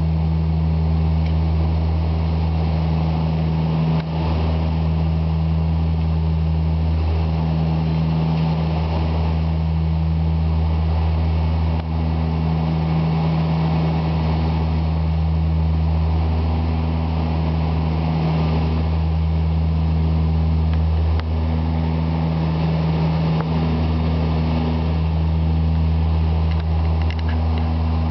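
De Havilland Dash 8 turboprop engines and propellers at takeoff power, heard inside the cockpit as a loud, steady, deep drone with a few brief small dips in level.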